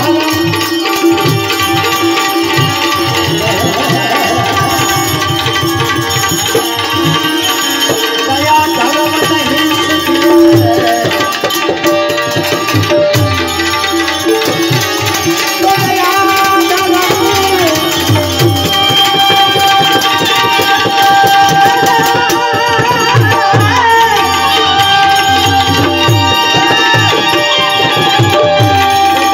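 Indian music played on tabla, with a benjo (keyed Indian banjo) carrying the melody and manjira hand cymbals, going continuously without a break.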